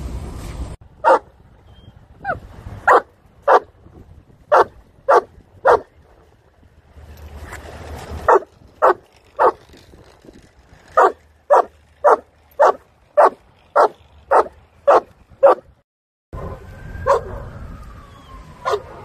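A small dog barking over and over: short, sharp barks, first in groups of three and then in a steady run of about two a second. Near the end, street traffic noise comes back with one more bark.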